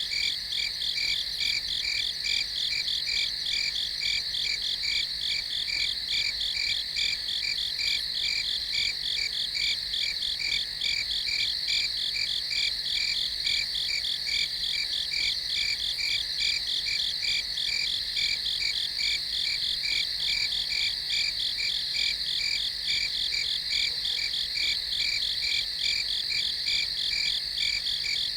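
Night ambience of a dense insect chorus, crickets chirping in a fast, steady pulsing trill, high-pitched and unbroken.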